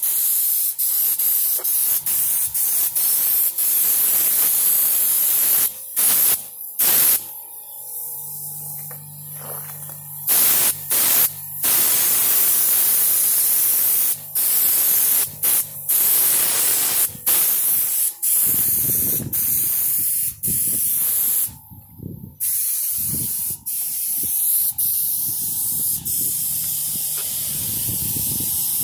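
Raptor bed-liner coating being sprayed from a compressed-air spray gun: a loud hiss of air and coating in long bursts, cut off briefly many times as the trigger is let go.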